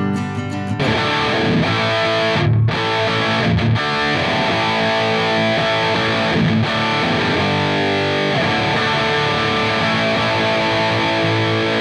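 An acoustic guitar being strummed, giving way under a second in to an overdriven electric guitar, a Godin Session HT, played through a 2x12 guitar cabinet.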